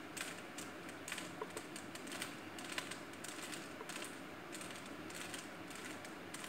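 Plastic 3x3 Rubik's cube being twisted by hand: quick, irregular clicks and clacks as its layers turn.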